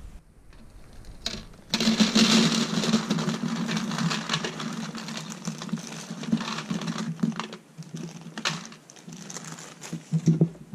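Dry dog food poured from a plastic bag into a plastic bowl: a dense rattle of kibble with crinkling of the bag, starting suddenly and thinning out after about six seconds. A steady low hum runs underneath.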